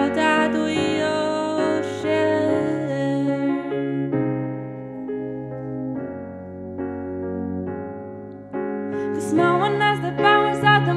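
A woman singing a slow song over her own electric piano chords played on a Nord Stage 3 keyboard. The voice drops out for a few seconds in the middle, leaving the held keyboard chords alone, and comes back near the end.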